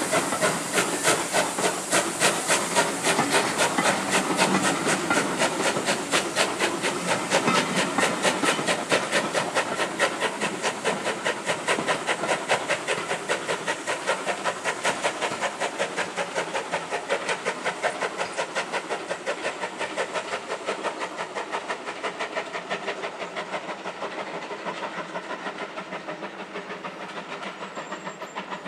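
Steam locomotive hauling coaches away, its exhaust beating in a steady chuff, about two to three beats a second and quickening slightly as it gathers speed. The chuffing fades as the train draws away.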